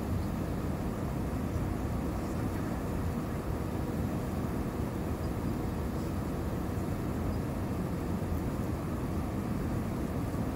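Steady engine and airflow noise inside the cabin of an Airbus A320-232, with IAE V2500 turbofans, on final approach with the flaps extended. It is a low, even noise that holds the same level throughout.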